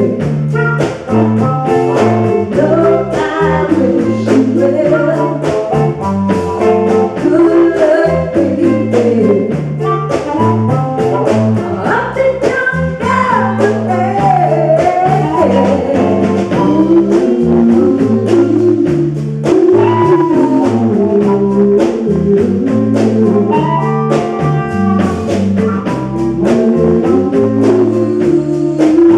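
A live band playing a song at a sound check: a singer over guitar, a stepping bass line and drum hits.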